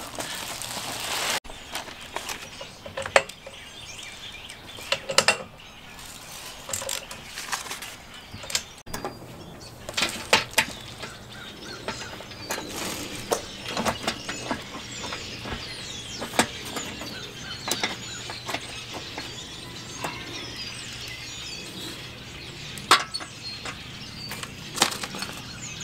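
Scattered clicks and knocks of hand tools and bolts being worked on a steel bumper guard, with birds chirping in the background from about ten seconds in.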